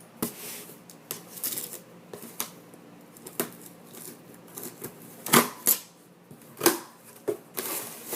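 Cardboard shipping box being opened by hand: irregular scraping and rustling of cardboard with several sharp knocks, the loudest a little past the middle.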